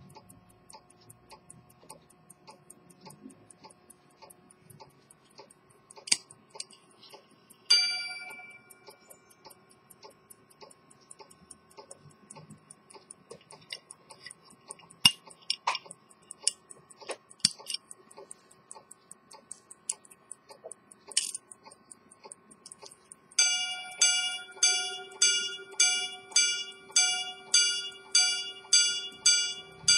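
Swiss quarter-repeater pocket watch ticking steadily. About eight seconds in, a single gong strike rings out and slowly fades; near the end the repeater's hammer strikes the gong in a run of evenly spaced rings, about one and a half a second.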